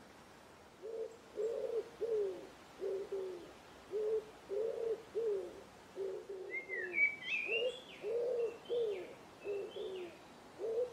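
A pigeon cooing over and over in low, repeated coos that begin about a second in. A smaller bird adds a few higher chirping notes around the middle.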